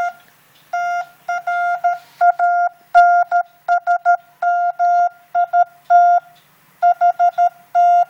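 MFJ Pocket Morse Code Tutor sending Morse code at 10 words a minute from its small built-in speaker: one steady beep switched on and off in short dits and longer dahs, with short gaps between letters and longer ones between words.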